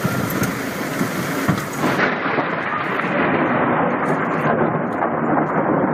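Heavy rain hissing, with thunder rumbling, during a thunderstorm. The sound changes abruptly about two seconds in, where one storm recording gives way to another.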